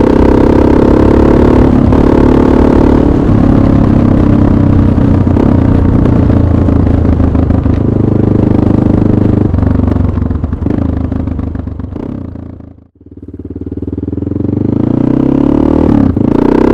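Honda NX650 Dominator's single-cylinder four-stroke engine running loud through an aftermarket Dominator exhaust silencer while ridden, the revs rising and falling. About three-quarters through, the sound fades away almost to nothing and then swells back up.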